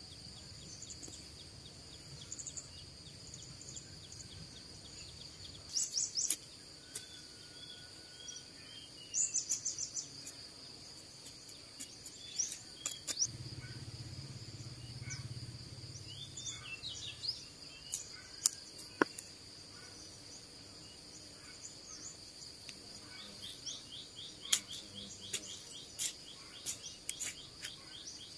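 A steady high insect drone with scattered bird chirps, over the scrapes and sharp clicks of a small hand trowel working dry clay soil.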